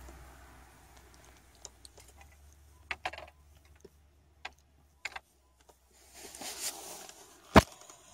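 Fishing tackle being handled while a small fish is landed: scattered light clicks and taps, a brief rustle, and one sharp, loud click near the end.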